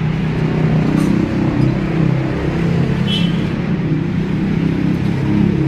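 Drag-race motorcycle engine running steadily at low, even revs, with a brief high chirp about three seconds in.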